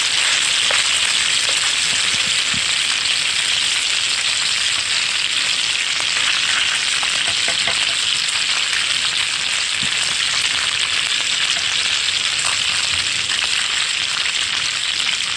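Fish deep-frying in hot oil: a steady, loud sizzle with scattered small pops and crackles.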